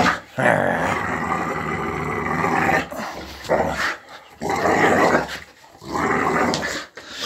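Dog growling in four long bouts, the first lasting over two seconds: play growling while it keeps hold of a toy someone is trying to take.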